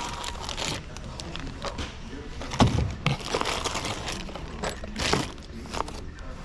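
Handling bagged copper pipe fittings in cardboard store bins: plastic bags crinkling and cardboard rustling in a string of short clicks and scrapes, with one sharper knock about two and a half seconds in.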